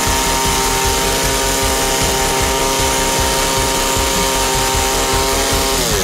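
Small gasoline engine of a homemade engine-powered vacuum cleaner running steadily at speed on its first start, with a strong even hiss over the engine note. Near the end the engine's pitch falls as it winds down.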